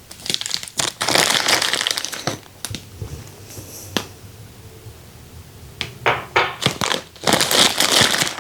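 Packaging crinkling and rustling in two stretches, with a few sharp clicks, as the mini handheld vacuum's attachments are unwrapped and handled.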